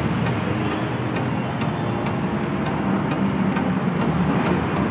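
Steady city street traffic: engines and tyres running without a break, with a faint regular ticking about twice a second.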